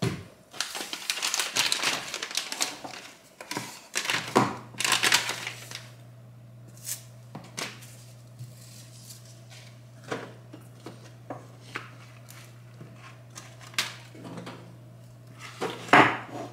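Groceries and plastic packaging being handled on a kitchen counter: crinkling and rustling in the first few seconds, then scattered light clicks and knocks as items are set down, with one louder knock near the end. A low steady hum starts about four seconds in.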